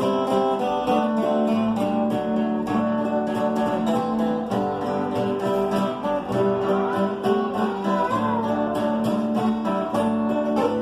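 Strummed acoustic guitar playing an instrumental passage with no singing, in a steady rhythm.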